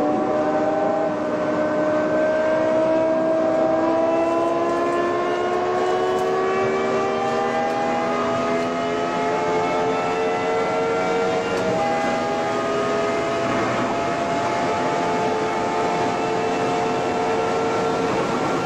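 BMW M5 E60's 5.0-litre V10 heard from inside the cabin, pulling hard at highway speed. Its pitch climbs slowly through a long pull in gear, with a drop for an upshift right at the start and another about twelve seconds in.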